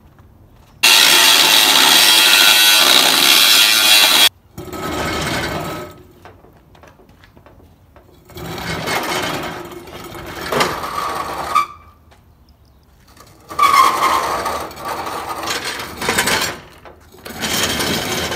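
Rusty steel VW Beetle floor pan section scraping and grinding across concrete as it is dragged, in several separate pulls. The first pull, about a second in, is the loudest and stops abruptly; later pulls carry a brief metallic squeal.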